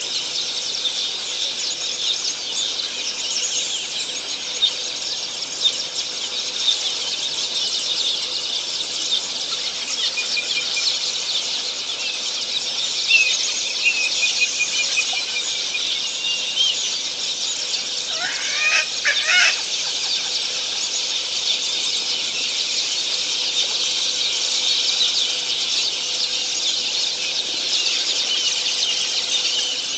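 Dense, continuous high-pitched chattering of many birds at a waterhole. A thin whistled call sounds in the middle, followed by a louder pair of lower calls just after.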